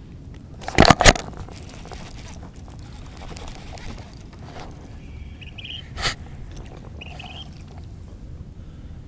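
Sharp knocks from gear being handled on a plastic fishing kayak: two close together about a second in and one more about six seconds in, over a steady low rumble of wind and water.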